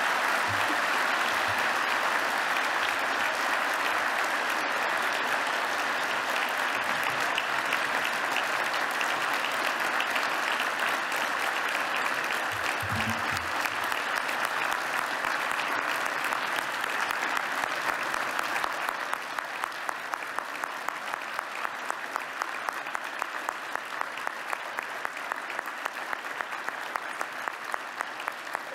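A large audience applauding, with many hands clapping at once. A little after two-thirds of the way through the applause thins slightly and steady, evenly timed rhythmic clapping comes through.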